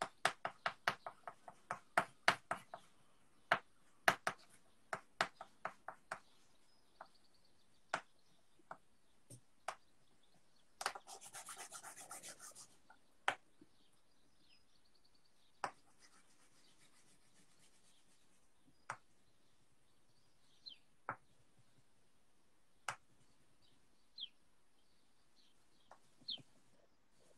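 Drawing on paper with pen and brush: scattered clicks and taps, quick at first and then sparse, with about two seconds of scratchy rubbing around eleven seconds in. A few faint bird chirps come near the end.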